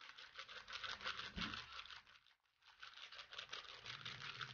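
Butter paper lining a tray crinkling and rustling as the tray is tapped and jiggled to level a semolina mixture, in two stretches with a short pause a little past two seconds in.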